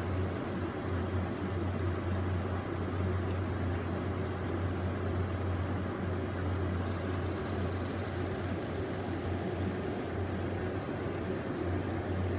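Steady low hum with an even hiss, like a running fan or air conditioner, and faint light ticks scattered through it.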